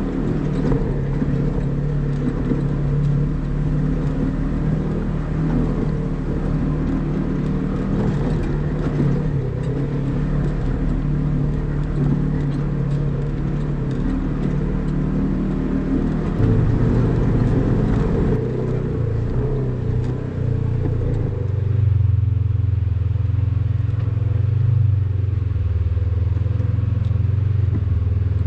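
Polaris RZR side-by-side's engine running steadily as it crawls over a rocky trail, with the rattle and clatter of the machine over stones. About halfway through, the engine note deepens and gets louder.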